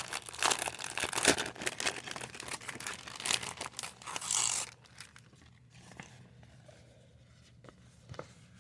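Packaging being crinkled and torn open by hand for about four and a half seconds, then a few faint light handling ticks.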